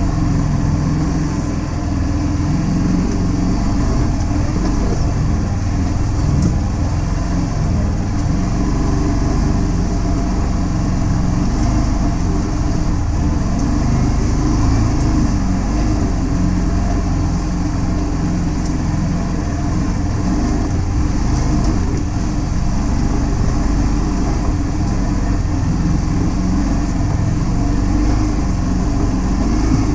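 Can-Am Defender HD10 side-by-side's Rotax V-twin engine running steadily under way, a continuous low drone with no big changes in speed.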